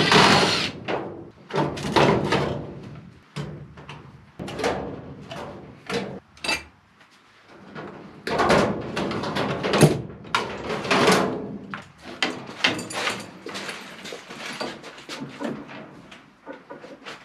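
Irregular knocks, rattles and scrapes of plastic and sheet metal as an old bypass humidifier is pulled off a furnace duct and handled.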